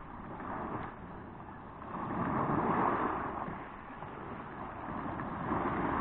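Small Black Sea waves breaking and washing up a beach of large pebbles, the surf swelling about two seconds in and again near the end.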